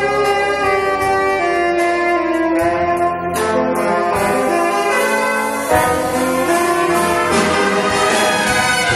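Jazz big band playing: tenor saxophone with the trumpet and trombone section, holding sustained chords that change every second or so over drums and bass, with cymbal crashes.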